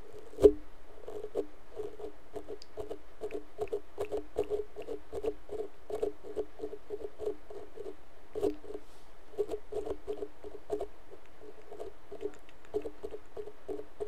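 Rapid, rhythmic tapping and brushing on a microphone as an ASMR sound effect, about four or five soft strokes a second, with one sharp, loud knock about half a second in.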